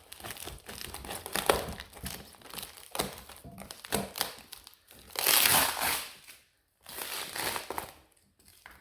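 Packaging wrap crinkling and rustling as thick, sticky packing tape is worked loose and peeled off, with a louder, rougher stretch about five seconds in.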